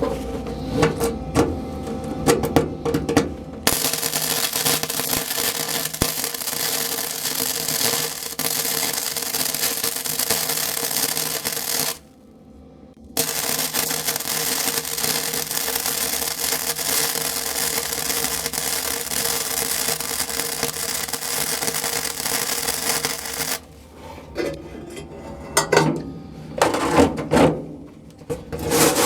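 Arc welding on sheet steel, closing up holes in a truck's cab floor. The weld runs as a steady crackling hiss in two long beads, about eight and then ten seconds, with a short break between. Shorter, broken bursts come in the first few seconds and again near the end.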